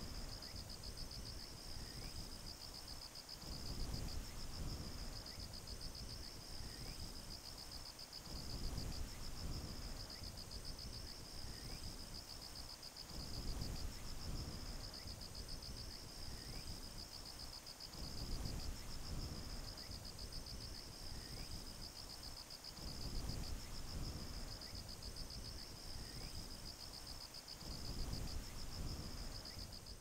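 Insects chirping in a steady, high, fast-pulsed trill that does not let up, under a low rumble that swells and fades every four to five seconds.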